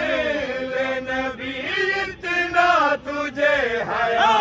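Men chanting a manqabat, a devotional Shia praise poem for Imam Hussain, in long melodic phrases with brief breaks between lines.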